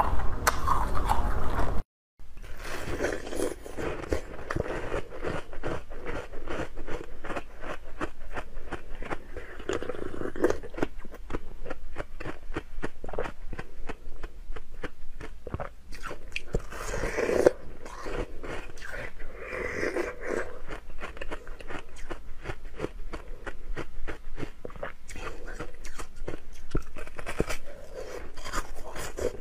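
Frozen milk ice being bitten and chewed close to the microphone: dense, rapid crunching and cracking, with a brief silent break about two seconds in.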